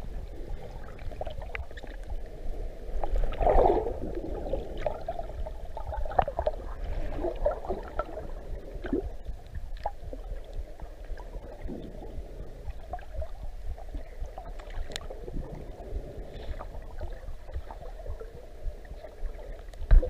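Muffled underwater ambience picked up by a submerged camera: a steady watery wash with scattered faint clicks and crackles, and a louder gurgling swell about three and a half seconds in.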